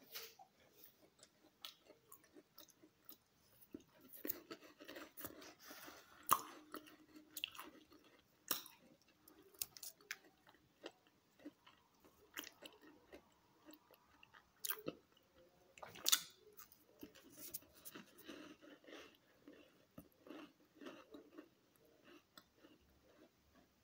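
A person chewing a crunchy chocolate chip cookie: irregular crisp crunches and mouth sounds.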